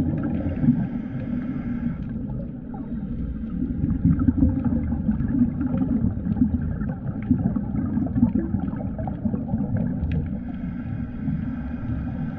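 Underwater sound picked up by a dive camera: a steady, muffled low rumble with gurgles and scattered small clicks.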